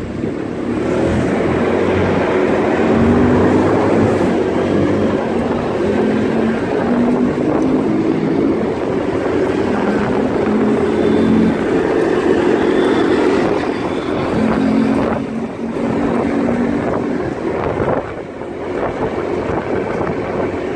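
Small motorcycle engine running as the bike rides along, its note rising and falling with the throttle, heard from the pillion with wind rushing over the microphone.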